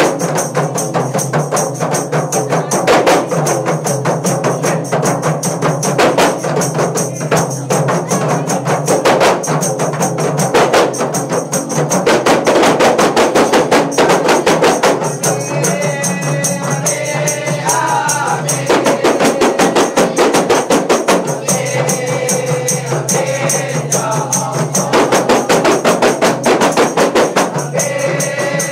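A kompang troupe, a group playing Malay hand-struck frame drums, beating fast interlocking rhythms for a wedding procession. Voices sing over the drumming several times.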